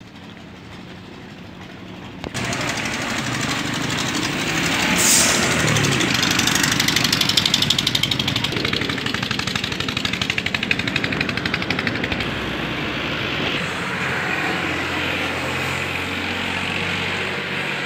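A small engine running loud with a fast, even chugging rhythm, starting suddenly about two seconds in after a quieter start.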